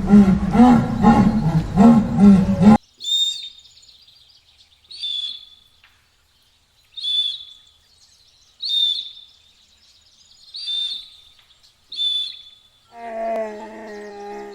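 A loud, pulsing animal call, repeated about twice a second, cuts off abruptly near the three-second mark. A bird then gives six short, high calls about two seconds apart. Near the end a lower, drawn-out animal call begins.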